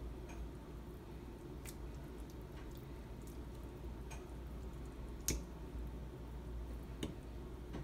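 Wet hair weave being pressed down and squished in a pot of hot water: soft squelching, with a few sharp clicks, the loudest a little past halfway, over a steady low hum.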